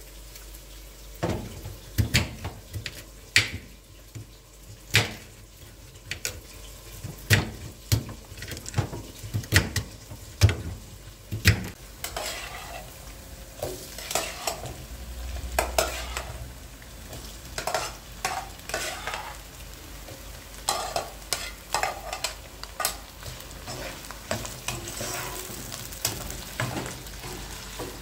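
Kitchen clatter: utensils knocking and scraping against pots and dishes. Single sharp knocks come about once or twice a second for the first dozen seconds, then give way to denser clinking and scraping.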